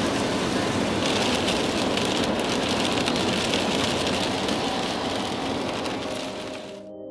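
Heavy rain pattering on a car's windscreen and roof with tyre and road noise, heard from inside the moving car. It stops suddenly near the end, leaving soft ambient music.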